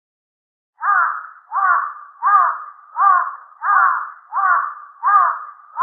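A crow cawing in a steady series of short calls, each dropping in pitch, about seven in a row. The calls start about a second in, after near silence.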